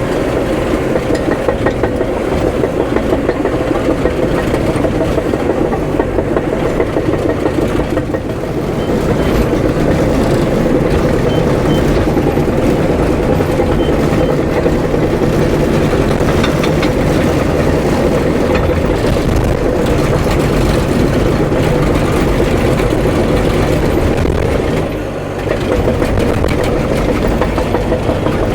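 Diesel engine of tracked heavy equipment running steadily, with steel tracks clattering. The sound dips briefly once, near the end.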